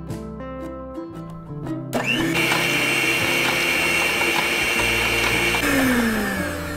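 Electric stand mixer starting up about two seconds in and running with a steady whine as its beater creams butter and powdered sugar in a steel bowl. It winds down with a falling pitch near the end. Background music plays throughout.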